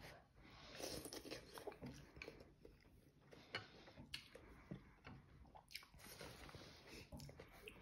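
A person eating hot instant noodles with chopsticks, blowing on them to cool them, then slurping and chewing, with scattered small clicks.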